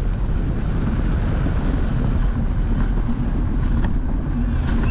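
Wind rushing over the microphone of a camera on an engineless soapbox cart coasting downhill at about 40–50 km/h, with the rumble of its wheels rolling on asphalt. A couple of faint knocks come near the end.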